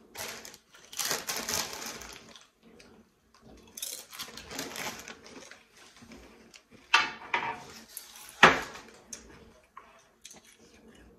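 Rustling and crinkling of paper and a snack bag at a table, then two sharp clinks of cutlery and dishes, the second the loudest.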